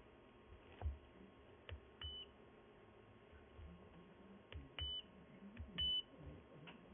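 FNIRSI 2D15P handheld oscilloscope giving short high key beeps as its buttons are pressed. There are three beeps, with faint clicks and handling knocks in between.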